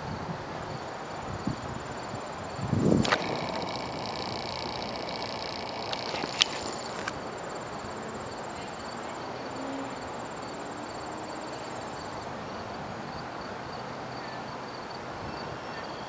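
Steady outdoor background noise with insects chirping. About three seconds in, a short low thump is followed by a high squeal of several tones that lasts about four seconds and stops sharply.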